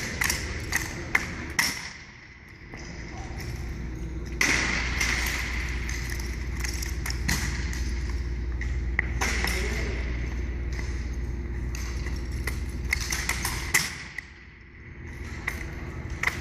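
Drill rifles worked in a two-person rifle drill routine: irregular sharp clacks, taps and thuds of the rifles being slapped, caught and struck, with ringing metallic pings.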